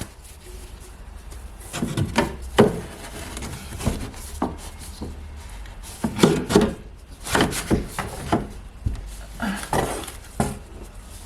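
Irregular wooden knocks, clunks and scrapes as a piece of wall paneling is handled and test-fitted against the wall.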